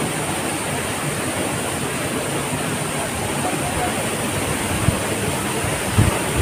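Waterfall rushing steadily close to the microphone, an even noise of falling water. There are two brief low thumps about five and six seconds in.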